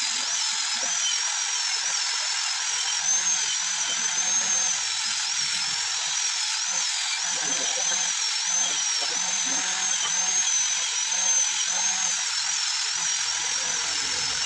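A small high-speed motor or tool running steadily: a high whine that wavers a little in pitch over a hiss.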